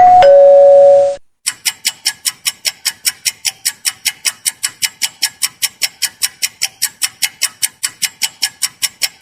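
A two-note 'ding-dong' doorbell chime, a higher note falling to a lower one over about a second. It is followed by a fast, even ticking of about four to five ticks a second that runs to the end.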